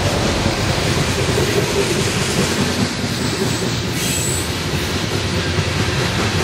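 Loaded coal train rolling past close by: the steady rumble and clatter of steel wheels over rail joints as the loaded coal cars go by. A brief high wheel squeal about four seconds in.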